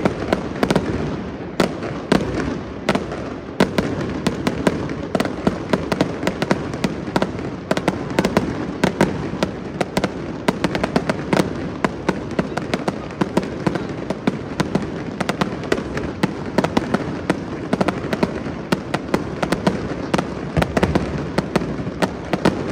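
Fireworks display going off without a break: a dense, rapid run of sharp cracks and bangs.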